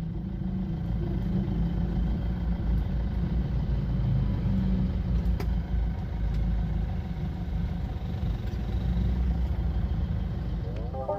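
Steady low rumble of a car's engine and road noise heard from inside the cabin while creeping along in slow traffic.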